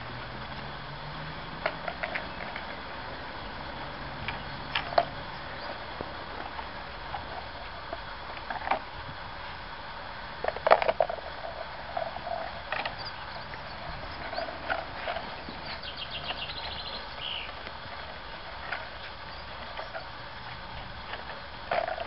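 Miniature schnauzer puppies playing on concrete: scattered light clicks and scuffs of paws and cardboard tubes on the hard ground, with a louder cluster of knocks about halfway through, over a steady background hiss.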